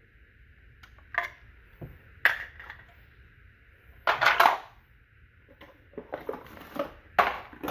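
Hard plastic toy-train tunnel pieces clacking as they are handled and set down on a tiled floor: a few separate knocks, the loudest and longest about four seconds in.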